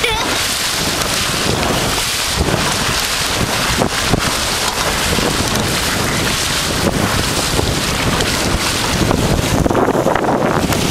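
Wind buffeting the microphone over the rush and splash of choppy water against the hull of a small sailboat sailing fast. It grows a little louder near the end.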